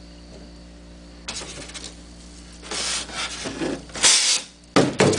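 Steel blades of a homemade claw stabbing into and scraping through a block of styrofoam: a string of short rasping scrapes, the loudest about four seconds in and two more close together near the end.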